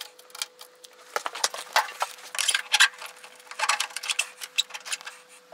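Irregular metallic clicks, taps and light clinks of tools and parts being handled while motorcycle fork legs are fitted into the triple clamps.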